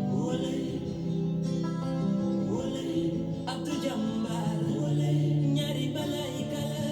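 A song playing: a man singing held notes over acoustic guitar accompaniment.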